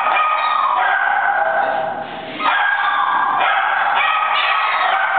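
Siberian husky giving an unbroken string of high yips and howls, each held briefly before jumping to another pitch, with a short lull about two seconds in.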